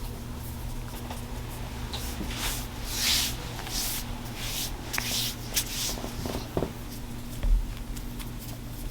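Hands rubbing and rolling the skin along a patient's back during a chiropractic skin pull: a series of soft rustling strokes, some stronger than others, in the middle, over a steady low hum, with a dull thump near the end.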